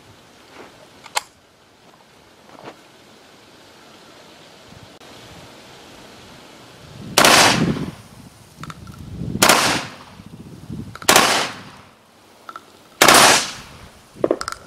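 JTS AK-style 12-gauge semi-automatic shotgun firing 1-ounce slugs: four loud shots about two seconds apart in the second half, each with a short echo, the gun cycling each round. A light click comes about a second in.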